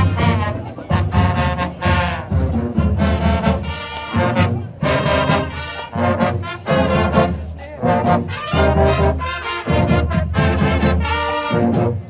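Marching brass band playing as it marches: trumpets, trombones and sousaphones in loud phrases over a steady drum beat.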